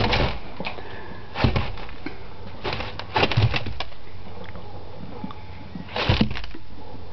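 Rat terrier puppy scrambling and digging through dry corn in a bin, the kernels rustling and rattling in short bursts about four times.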